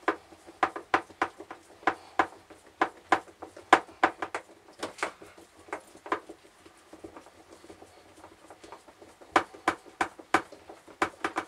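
Sharp metallic clicks, about three a second, in two runs with a pause of a few seconds between, as a hand tool works the long bolts out of a VacuFlush marine toilet's pedal assembly.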